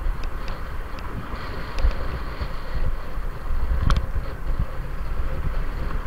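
Wind buffeting the microphone of a camera on a moving bicycle, a steady low rumble with road and traffic noise, and a few sharp clicks or rattles, the sharpest about four seconds in.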